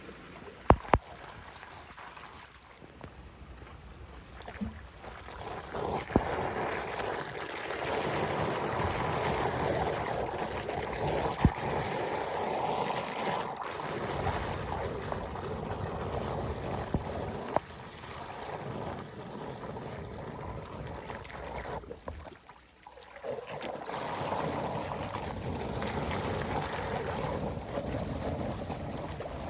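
Rushing floodwater draining through a cleared drain or culvert, a steady wash of water with a few sharp knocks and clicks. It swells a few seconds in and dips briefly about three quarters of the way through.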